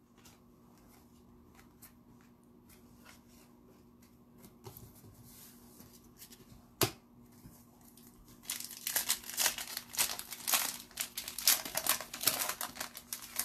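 Foil wrapper of a hockey card pack crinkling and tearing, dense and continuous from about eight and a half seconds in, after faint scattered handling clicks and one sharp click about seven seconds in.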